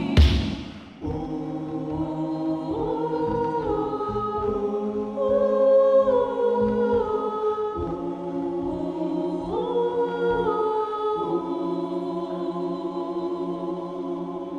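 Adult gospel choir singing long held chords in close harmony, the chord shifting every couple of seconds, over a steady low beat. A loud hit sounds just at the start.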